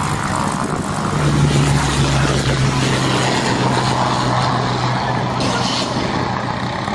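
Rolls-Royce Merlin V12 engine of a Hawker Hurricane IIB running with a steady low drone, which strengthens about a second in and eases off after about five seconds.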